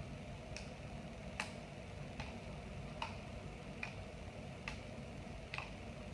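A sipa, a small metal washer tufted with plastic straws, being hit upward with the palm again and again: a light tap about every 0.8 s, seven in all, over a faint low hum.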